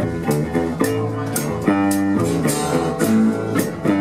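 A live band plays an upbeat rhythm-and-blues number on electric guitars, bass and drums. The drums keep a steady beat of about two hits a second under the guitar chords.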